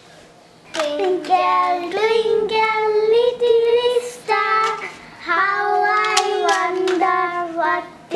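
A child singing long held notes with no clear words, starting about a second in.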